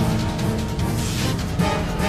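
Dramatic theme music with sharp percussive hits, the opening sting of a TV crime-news segment.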